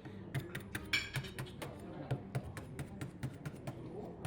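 A salt crust around a baked lobster being tapped and cracked open, a quick run of sharp clicks and knocks at about four a second, over soft background music.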